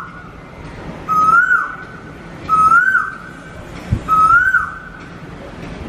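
A bird's whistled call, repeated three times about a second and a half apart, each note starting level and then swooping up and falling back. A short knock sounds just before the third call.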